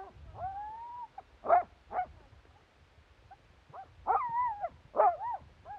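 Harnessed sled dogs whining and yelping. A long rising whine comes about half a second in, then two sharp yelps. Wavering whines and more yelps follow near the end.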